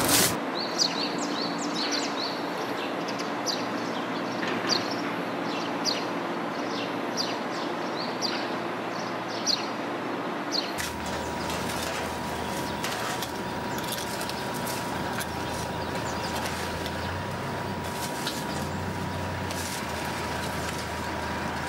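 Outdoor ambience of small birds chirping in short, repeated high notes over a steady background noise. About halfway through, the sound changes to a lower steady rumble with a faint steady hum and fewer chirps.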